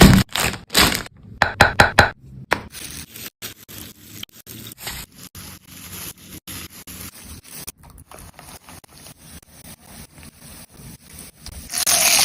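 Repeated scraping and clicking, likely from food preparation: a few loud scrapes in the first two seconds, then a long run of quieter, quick scrapes, louder again at the end.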